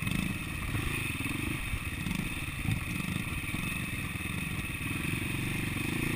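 Dirt bike's single-cylinder four-stroke engine (an SWM 300RS) running steadily at low revs close to the microphone, with some clatter from the bike over rough ground.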